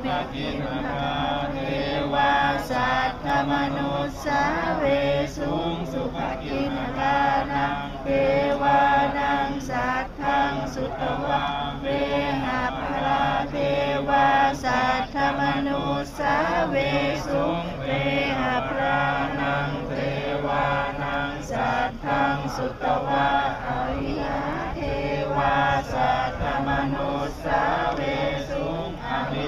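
A group of voices chanting Buddhist verses in Pali together, in a steady, continuous recitation.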